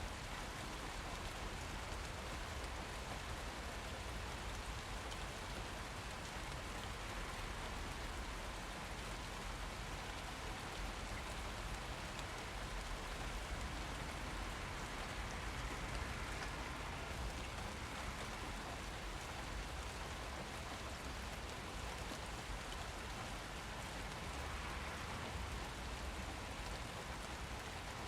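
Steady rain falling, with the patter of drops on surfaces.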